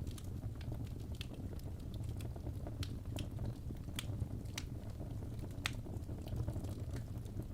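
Wood fire burning in a fireplace: a steady low rumble of flame with irregular sharp crackles and pops, the loudest snaps about four and six seconds in.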